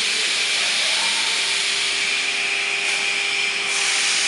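CNC router running, its spindle and bit cutting with a steady high hiss and a steady whine underneath.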